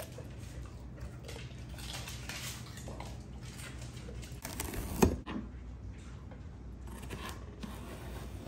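Celery being trimmed and broken with a kitchen knife over a plate: faint scrapes and rustles, with one sharp knock about five seconds in.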